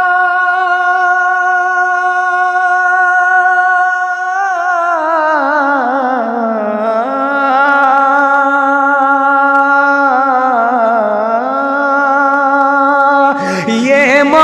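A naat reciter's voice sings without words. It holds a long, steady note for about four seconds, then draws out a slow, wavering melisma that falls in pitch and settles on a lower held note. Near the end a louder new phrase begins.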